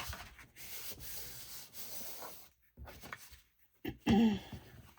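Hand rubbing and smoothing paper down onto a glue-stick-coated journal cover, a dry scuffing that pauses twice briefly. A brief vocal sound about four seconds in.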